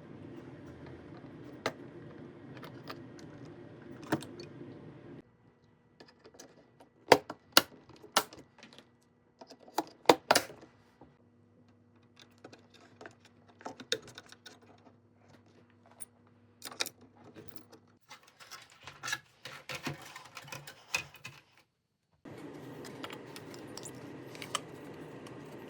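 Sharp clicks, clinks and small clatter of computer parts being handled and fitted as components are moved onto a new motherboard, the loudest clicks about seven and ten seconds in. A steady hum sits under the first five seconds and again near the end.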